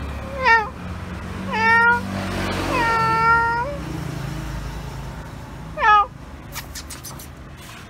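Orange tabby cat meowing four times. The third meow is long and drawn out, and the others are short.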